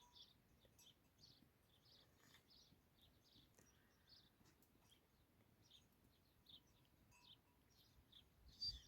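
Faint bird chirps: many short, high calls scattered over near silence, with a slightly louder one near the end.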